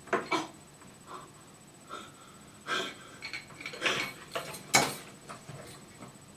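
Hand ball pump being worked, a handful of short, uneven hisses of air as it pumps air into a small plastic ball; the loudest comes near the end.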